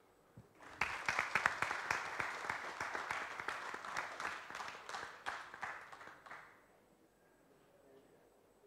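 Applause: many hands clapping, starting just under a second in and dying away after about six seconds.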